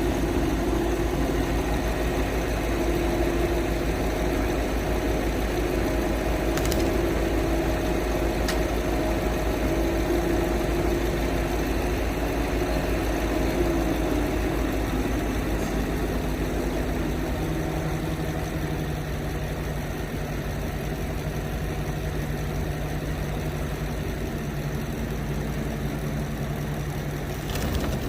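A crane truck's diesel engine running steadily. About halfway through its tone settles to a lower, steadier hum, and there are two light clicks early on.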